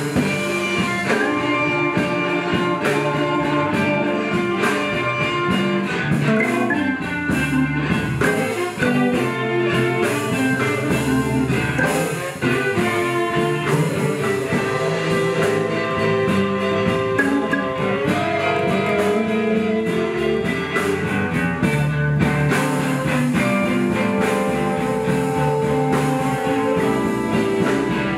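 Live blues band playing an instrumental passage with no vocals, guitar to the fore over a rhythm section.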